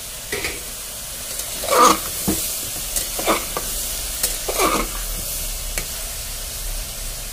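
Metal spatula scraping and stirring vegetables in an aluminium pressure cooker, several strokes over the steady sizzle of potatoes, soya chunks, onion and tomato frying in ghee. The loudest scrape comes about two seconds in.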